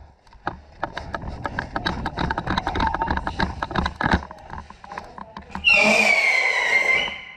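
Quick, uneven footsteps and knocks of someone moving over a hard, debris-strewn floor. Near the end comes a loud, high-pitched drawn-out cry of about a second and a half that falls slightly in pitch.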